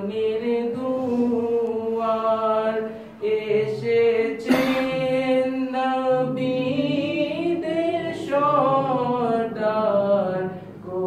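Unaccompanied men's voices singing a devotional naat, drawn-out melodic lines with long held, sliding notes and brief breaths between phrases.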